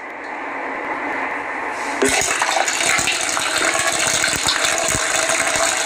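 A steady rushing, hissing noise that builds from the start and becomes louder and brighter about two seconds in, with a few dull low thumps beneath it.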